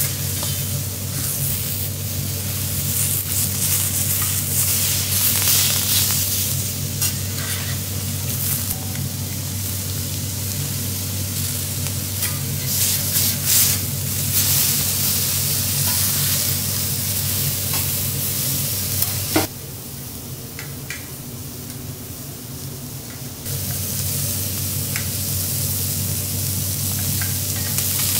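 Lobster meat and shell sizzling on a hot teppanyaki steel griddle, with scattered sharp clicks and scrapes of a metal spatula and tongs on the plate, over a steady low hum. About two-thirds through, the sizzle falls away for a few seconds after a sharp click, then comes back.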